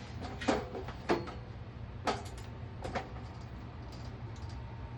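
Four separate clicks and knocks of hands handling the motorcycle, over a steady low hum; the engine is not cranking or running.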